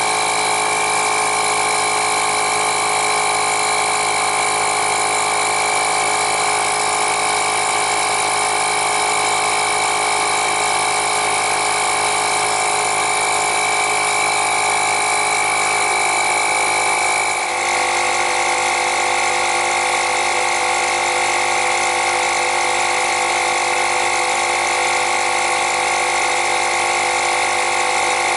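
Milwaukee M12 cordless tire inflator's compressor running steadily, pumping a tire up from about 21 toward a 35 PSI target. A steady mechanical hum with a high whine; about two-thirds of the way through its pitch drops slightly after a brief dip, then it runs on steadily.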